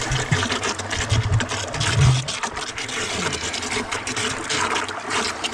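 Water gushing into a concrete stock water trough, a steady hiss, with a few dull low knocks in the first two seconds.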